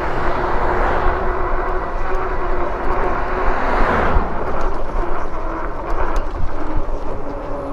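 Wind rushing over the microphone and road noise while riding an e-bike; a louder rush swells over the first four seconds and drops off.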